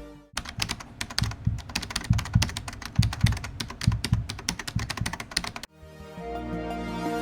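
Rapid, irregular clicking like typing on a computer keyboard, lasting about five seconds. Electronic background music cuts out just before it and comes back near the end.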